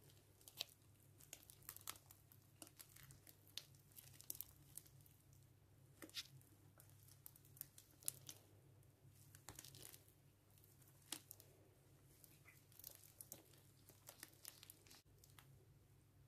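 Green slime made from a powder-and-water kit being squeezed and stretched by hand, giving faint sticky crackles and clicks at an uneven pace.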